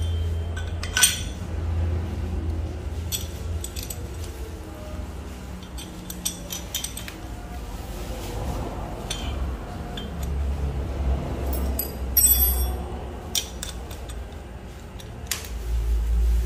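Scattered clicks and clinks of metal air-rifle parts knocking together as a tactical chassis kit is fitted to a PCP air rifle, with a few brief metallic rings and low handling rumble.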